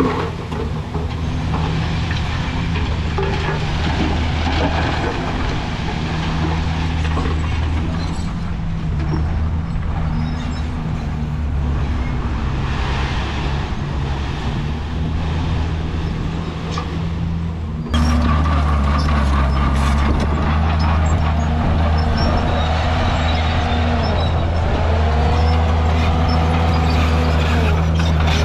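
Heavy diesel earthmoving machinery running under load, steady and low. About two-thirds through the sound changes abruptly and gets louder, and a whine dips and rises in pitch several times.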